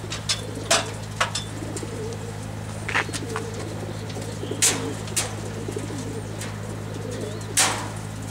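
Racing pigeons cooing steadily inside the wire crates of a transport truck, over a steady low hum. Sharp clicks sound about six times as the crate fastenings are handled, the loudest about two-thirds of the way in and near the end.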